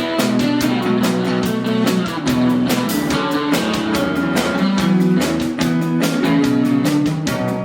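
A band playing a rock song led by guitar, with held chords and a steady beat.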